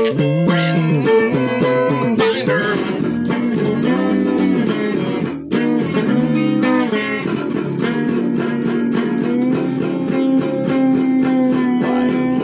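Electric guitar playing a blues passage, with notes that bend and slide, ending on a long held note.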